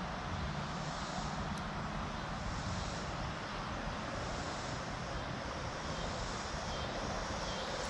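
Steady drone of distant road traffic, a constant even hum with no single vehicle standing out.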